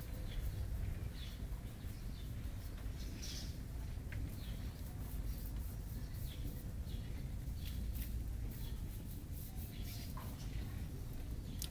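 Italian sparrows chirping, short scattered chirps repeated throughout, over a steady low rumble.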